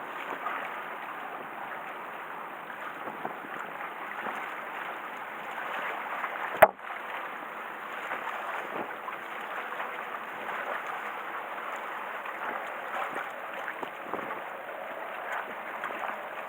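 Small waves splashing and lapping against the concrete tetrapods of a harbour breakwater, a steady wash of water with small irregular splashes. A single sharp click about six and a half seconds in.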